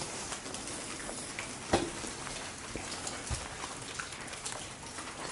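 A single sharp knock a little under two seconds in, over faint steady noise with scattered small ticks, and a softer low thud a second and a half later.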